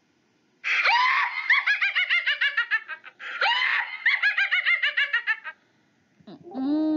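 A high-pitched cartoon witch's cackle, heard twice in a row, each a couple of seconds of rapid repeated laughing syllables.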